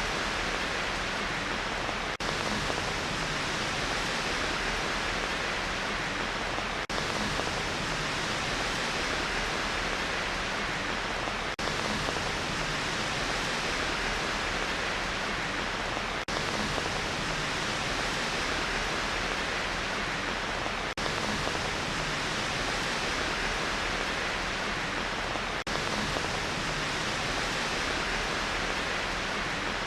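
Steady rain noise, an even hiss of rainfall with a brief dip in level about every five seconds.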